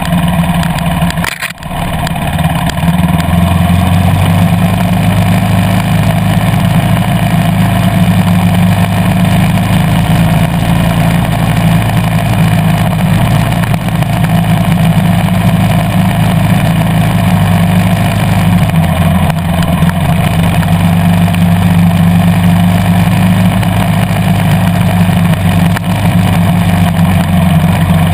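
KTM 350 EXC-F's single-cylinder four-stroke engine running steadily as the bike is ridden, with a brief dip in level about a second and a half in.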